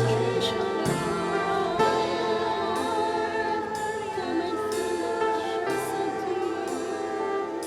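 Live worship music: a group of voices singing a slow Christian song with vibrato over instrumental accompaniment.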